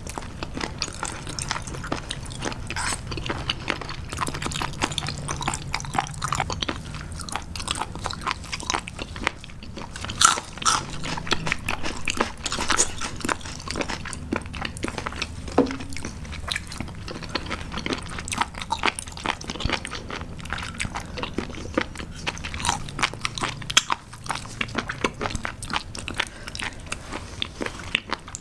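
Close-miked chewing of crunchy raw seafood: many quick, sharp crunches in rapid succession throughout.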